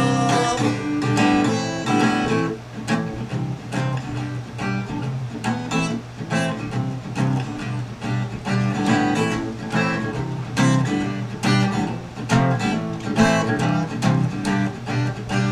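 Soundtrack music: a strummed and plucked acoustic guitar playing an instrumental passage of a song, with no vocals.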